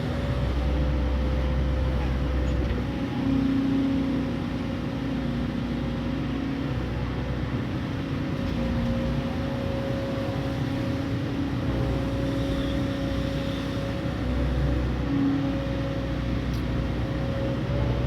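Excavator's diesel engine running steadily while digging, its pitch shifting slightly up and down a few times as the load changes.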